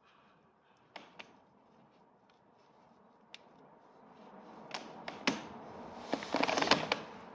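Hand work on brake caliper parts: scattered sharp clicks and light knocks of tools and metal parts being handled, with a busier run of rattling taps about six seconds in.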